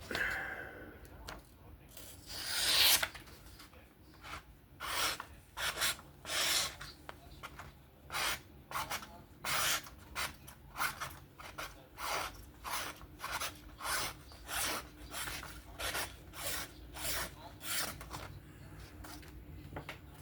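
Knife blade being stropped by hand on a diamond-emulsion strop, a steady run of short rubbing strokes about one and a half a second, with one longer, louder stroke near the start.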